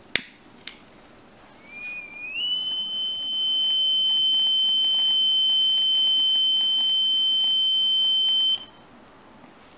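Electronic alarm buzzer sounding: it starts weak and climbs in pitch over about a second, then holds one steady shrill tone for about six seconds and cuts off abruptly. It is wired to a graphene oxide heat sensor that becomes conductive when the wallpaper is heated by flame. Two sharp clicks come just before it, near the start.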